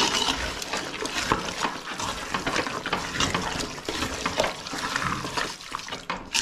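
Metal spoon stirring raw chicken pieces through a thick, wet masala in a metal pot: continuous wet squelching and sloshing, with many small clicks and scrapes of the spoon against the pot.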